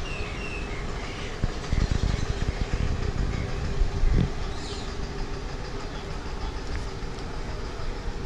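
A vehicle's steady low rumble with a constant hum, and a louder bump about four seconds in.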